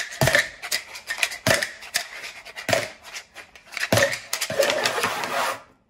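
Dice cup swept across a wooden tabletop, scooping up dice one at a time: four sharp clacks about a second apart as each die is caught, with dice rattling and the cup scraping on the wood in between. Near the end, about a second of steady rattling as the dice are swirled together inside the cup, which then stops suddenly.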